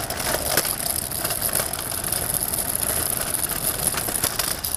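City street traffic: a vehicle engine running close by over a steady hiss, with scattered clicks and rattles. The noise drops away sharply at the very end.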